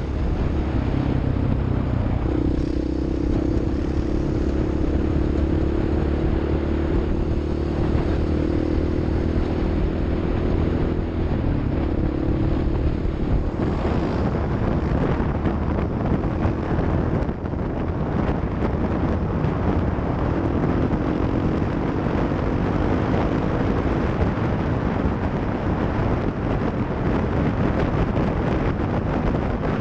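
Engine of an off-road vehicle running under way, its pitch rising and falling slowly, over a continuous rough noise.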